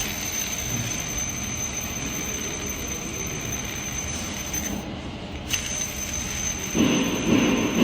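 BMW B48 four-cylinder engine running with an abnormal noise that points to a worn intermediate gear, the crankshaft drive mass-balancer gear. It is a steady rushing mechanical noise with a thin, high, steady tone over it, broken off briefly about five seconds in and louder near the end.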